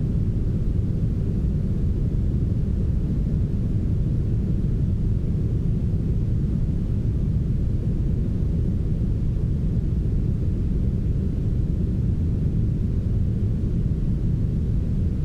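Steady, smoothed brown noise: an even, deep hiss with its weight in the low end and little treble.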